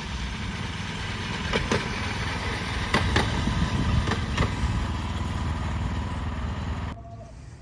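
Railway motor trolley's small engine running as it pulls in on the loop line, with a few sharp clicks. The sound cuts off suddenly about seven seconds in.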